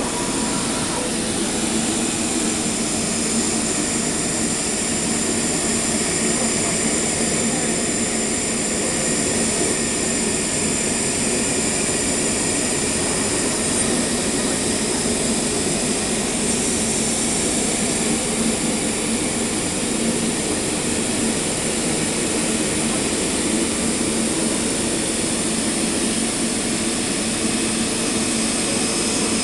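STM flatbed computer cutting table running as its tool head cuts a sheet: steady machine noise with a low hum and a thin high tone, unchanging throughout.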